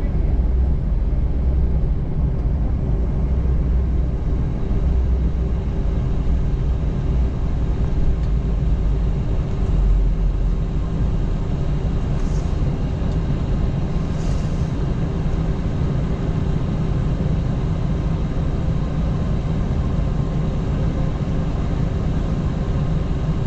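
Steady cabin rumble of an Airbus A321-211 with its CFM56 engines at idle, lining up and holding on the runway before takeoff, with a steady hum running through it. The deepest part of the rumble eases off about ten seconds in.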